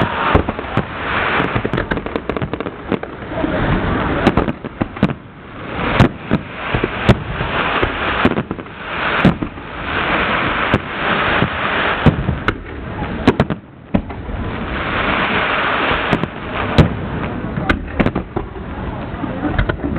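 Fireworks display going off: a rapid, irregular series of sharp bangs over a continuous crackling hiss that swells and fades several times.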